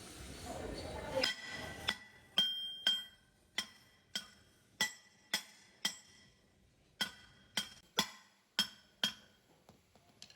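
Metal struck repeatedly with a hammer: about fourteen sharp taps at uneven intervals, each ringing briefly at the same few pitches.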